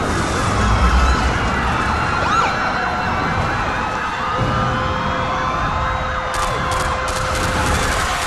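Several sirens wailing at once, their pitches slowly rising and falling and overlapping, over a low rumble; a steady held tone joins about halfway through.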